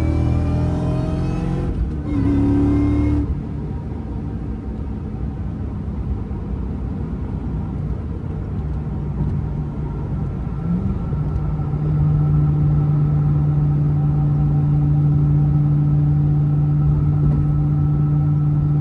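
Supercharged 4.6-litre V8 of a 2003–04 Mustang SVT Cobra, heard from inside the cabin through an SLP catted X-pipe and Magnaflow Street Series cat-back, pulling hard under acceleration with a rising supercharger whine. There is a brief break for a gearshift about two seconds in, then it lets off about three seconds in and cruises. From about halfway on it holds a steady, even exhaust tone.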